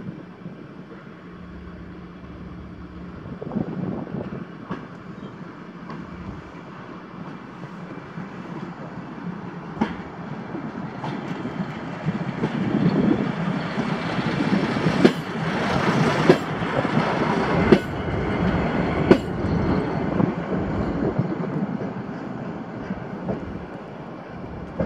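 WM15A rail track motor car towing a flatbed trailer passing slowly: its engine grows louder as it comes near and fades as it goes away, with four clacks of the wheels over rail joints about a second and a half apart as it goes by.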